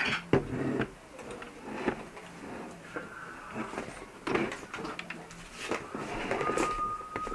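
Hard plastic toy helmet parts knocking, clicking and rustling as they are handled and pulled apart, with a short steady high tone near the end.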